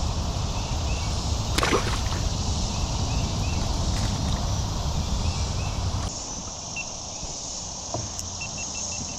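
Steady rushing noise of fast-flowing creek water with a low rumble, broken by one quick swish about a second and a half in. About six seconds in it cuts abruptly to a quieter background with a high insect buzz.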